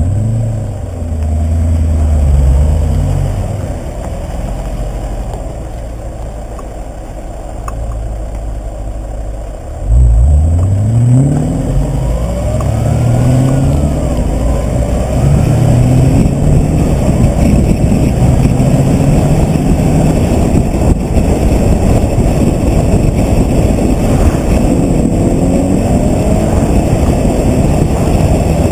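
Modified Audi RS4, with an aftermarket intake and remapped engine, accelerating hard: after a quieter stretch of running, the engine note jumps up about a third of the way in and climbs in pitch through several gear changes. It then holds a steady loud run at speed.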